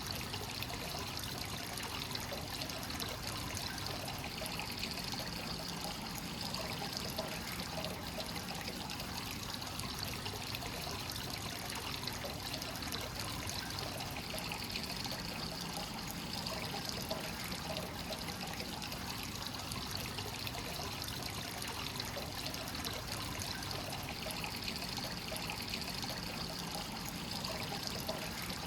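Hot-spring water pouring steadily into a bath from a free-flowing source, a continuous trickling splash.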